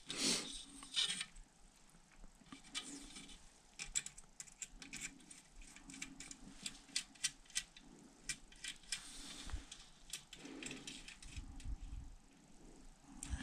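Faint, irregular light clicks and small metallic rattles of cut-down spoke pieces and nipples being handled at a carbon rim, thickest in the middle, with a couple of low bumps near the end.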